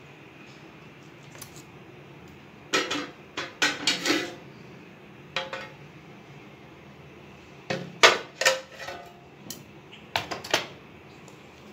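Dishes and utensils clattering in short bursts of knocks: a cluster about three to four seconds in, a single knock near the middle, another cluster around eight seconds and a pair near the end.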